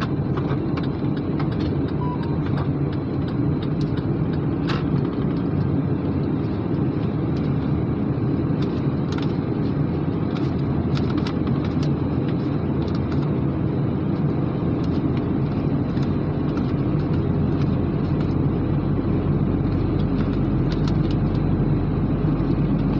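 A motor vehicle's engine running steadily with a continuous low rumble, a deeper hum building about two-thirds of the way through, and a few faint clicks.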